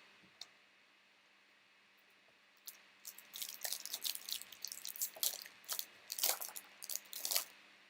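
Crinkling and crackling of a plastic trading-card pack wrapper and cards being handled. It starts a little under three seconds in and runs as a dense patter of small crackles for about four and a half seconds.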